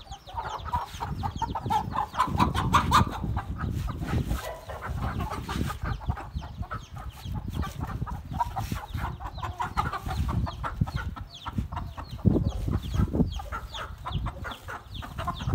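Aseel chickens clucking continuously, a hen and her chicks calling in quick short notes while being handled in a wire cage.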